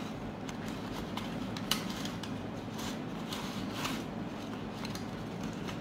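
Aluminium foil lid being pressed and crimped onto a foil container, giving a few faint crinkles and rustles over a steady low background hum.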